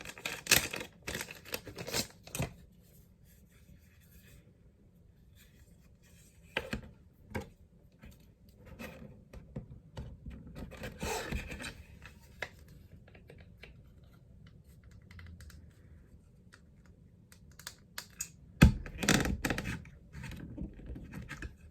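Small hard-plastic figure parts and stand handled and pushed together: scattered clicks, taps and scraping in clusters, the loudest cluster about nineteen seconds in, with quiet gaps between.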